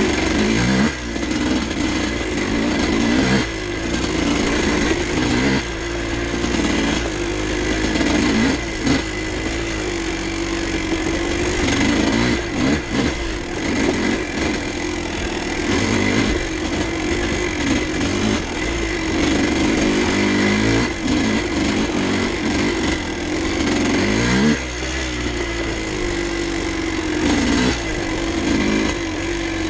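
1986 Kawasaki KDX200's single-cylinder two-stroke engine running under way, its note rising and falling over and over as the throttle is rolled on and off.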